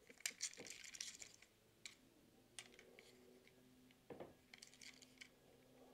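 Faint clicks and light rustles of a plastic toy car and its packaging being handled: a cluster in the first second and a half, then a few single clicks.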